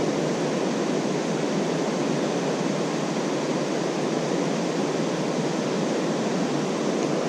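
River rapids and a waterfall rushing, a steady, even wash of water noise.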